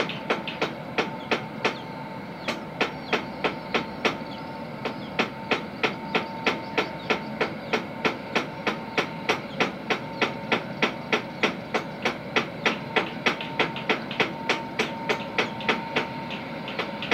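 Steam power plant machinery knocking in a fast, even rhythm, about three sharp strikes a second, over a steady background rumble.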